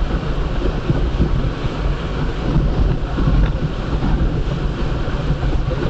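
Strong tornado inflow wind buffeting the storm-chase vehicle: a loud, heavy rumble of wind that surges and eases.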